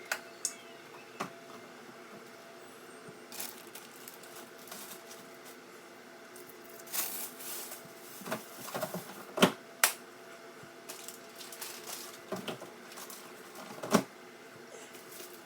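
Food containers and items being handled and set down on refrigerator shelves: scattered clicks, knocks and rustling, with the sharpest knocks about halfway through and near the end, over a steady hum.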